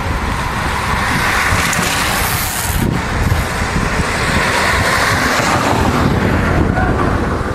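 A small car driving past close by, its tyre and engine noise swelling as it approaches and fading once it has gone by.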